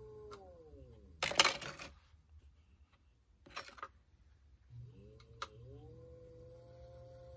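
Electric pottery wheel motor whining down to a stop, its pitch falling, then two short bursts of clatter and a click as tools are handled, before the motor whines back up, rising in pitch, and runs steadily as the wheel spins again.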